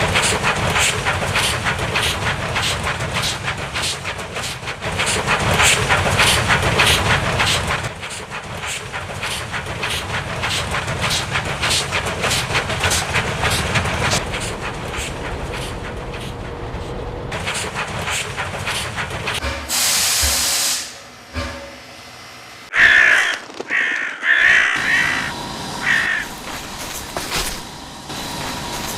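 Steam-engine sound effects for a small tank engine: a long stretch of dense, irregular chuffing and hissing, then a loud blast of escaping steam about twenty seconds in. Several short, harsh calls follow near the end.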